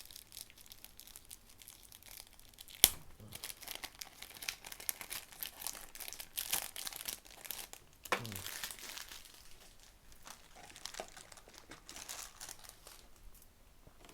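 Plastic packaging crinkling and tearing as a mirror speed cube is unwrapped, with one sharp click about three seconds in.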